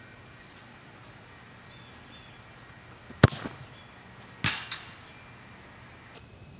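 A soccer ball struck hard in a free kick, a sharp thump about three seconds in. A little over a second later the ball hits the metal goal frame with a short ring, followed by a smaller knock.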